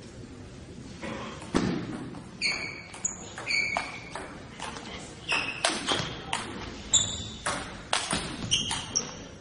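Table tennis play in a large hall: quick irregular clicks of celluloid balls striking bats and tables, with repeated short high-pitched squeaks mixed in from about two and a half seconds on.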